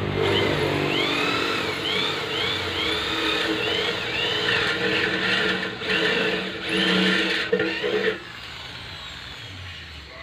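Corded electric drill with a hole-cutter attachment cutting a circle in a steel box-section tube: the motor runs under load while the cutter gives high squeals that rise and fall again and again as it scrapes the steel. The drill stops about eight seconds in.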